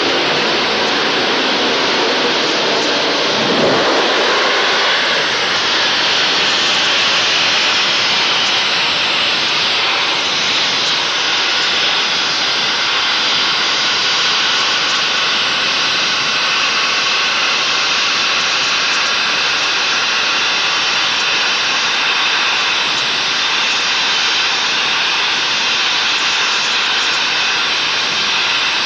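Steam locomotive blowing off steam, a loud, steady hiss with no beat to it, as from safety valves lifting while the engine stands at the platform.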